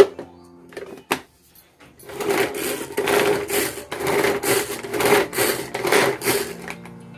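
Pull-cord manual food chopper whirring in a run of about ten quick pulls, roughly two a second, its spinning blades chopping onion, green chilli and coriander leaves. A couple of sharp clicks come first.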